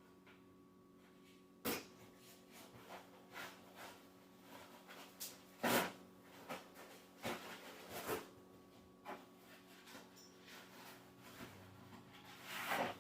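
Scattered clicks, knocks and rustles of packaging and straps being handled and removed from a new e-bike, with a louder knock about six seconds in and a longer rustle near the end.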